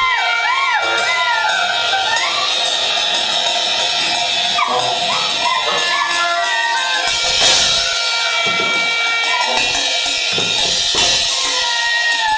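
Live improvised band music: a high melodic line swooping up and down in pitch over drum-kit cymbals, with a few low bass-drum thumps about seven and ten seconds in.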